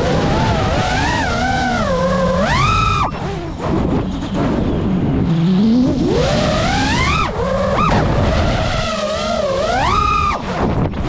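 FPV quadcopter's brushless motors and propellers whining, the pitch sweeping up and down with the throttle. It climbs three times, and each climb ends in a sudden drop.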